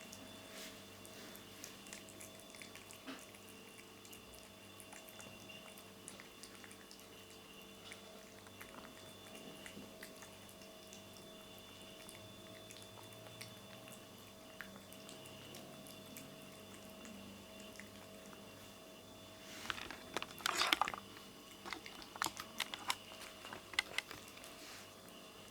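A cat chewing and biting at its food, soft irregular clicks and crunches, with a louder cluster of crunching about twenty seconds in followed by scattered sharper clicks.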